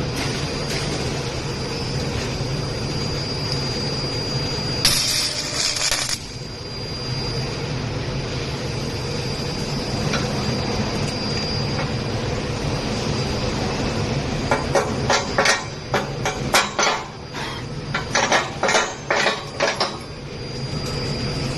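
Capacitor-discharge stud welder firing: a quick, irregular run of sharp metallic cracks, two or three a second, over a steady machine hum. There is a brief hiss about five seconds in.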